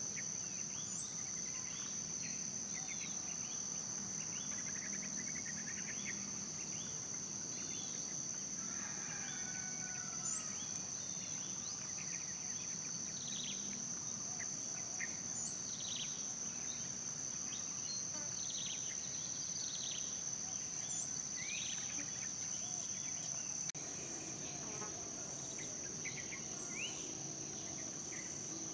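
A steady, high-pitched chorus of insects such as crickets, with many short, scattered chirps over it. The background shifts slightly and drops a little in level about three-quarters of the way through.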